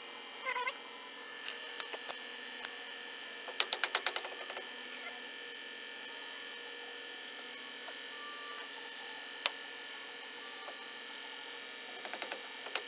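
Steady electrical hum with scattered sharp clicks of metal tools and parts being handled; a quick run of rapid clicks about four seconds in, and a fast regular tapping starting near the end.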